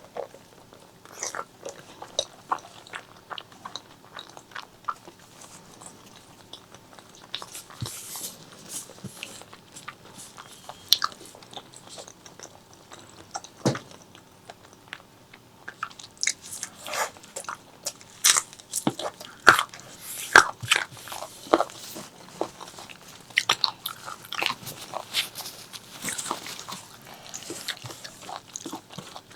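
Close-miked eating of pork leg curry with rice: chewing with many short, sharp, irregular clicks, busier from about halfway in.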